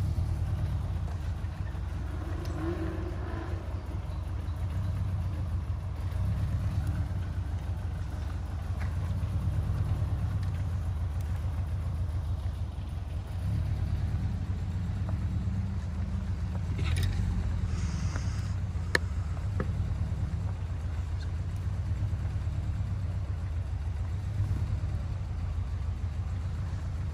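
Car engines running at low speed as cars drive off, a steady low engine sound that swells and eases as they move past, with one sharp click about two-thirds of the way through.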